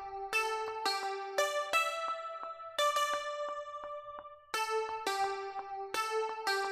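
Layered Serum software-synth patches playing back a looped keyboard melody: bright, plucky notes that each fade away, in a steady pattern that thins out and starts over about four and a half seconds in.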